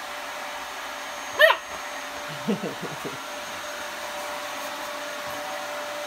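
A vacuum cleaner runs steadily throughout while a puppy gives one sharp, high bark about a second and a half in. A few lower, shorter woofs follow about a second later.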